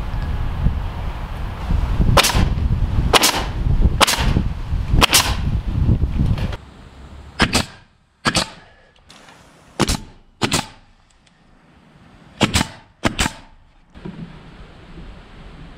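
Pneumatic nail gun firing nails into wooden trim boards with sharp cracks: four shots about a second apart over a low rumble, then three pairs of quick shots against a quieter background.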